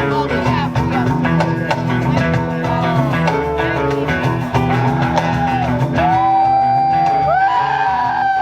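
Loud rock music: a guitar lead with bent notes over a steady bass line, ending on long held notes that waver.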